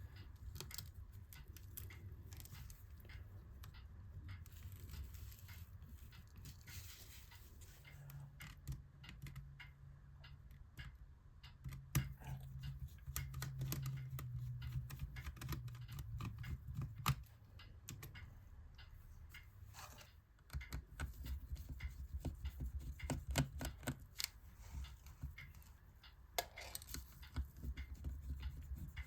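Small screws being taken out of a laptop's hinges and screen assembly: scattered light clicks and taps of a screwdriver and small metal parts, with a low hum for several seconds partway through.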